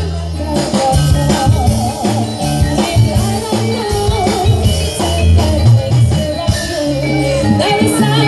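Live Javanese jaranan campursari music: a full ensemble with drums and a steady bass line under a wavering melody.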